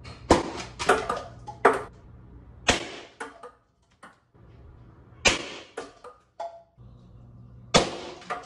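A run of sharp knocks and clatters, about nine irregular hits in all, from thrown objects striking the hard parts of a trick-shot setup. Each hit rings briefly in the room, over a faint steady low hum.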